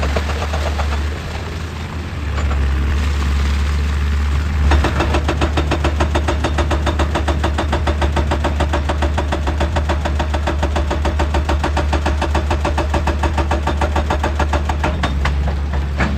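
Heavy diesel machine running, then from about five seconds in a hydraulic breaker hammering rock in a fast, even string of many blows a second.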